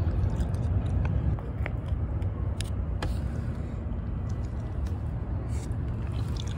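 Steady low outdoor rumble, with a few faint small clicks.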